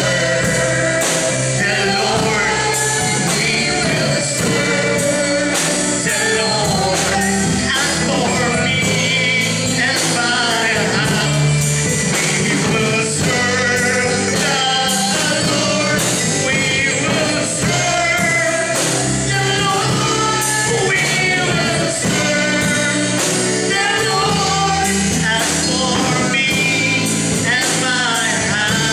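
A man singing a worship song into a microphone, backed by instrumental music with a steady beat.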